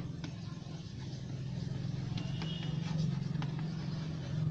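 Faint scratches and taps of chalk writing on a blackboard over a steady low motor hum.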